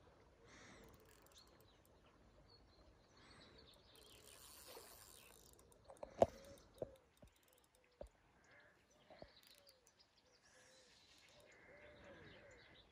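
Faint outdoor ambience with birds calling, and a few sharp clicks, the loudest about six seconds in.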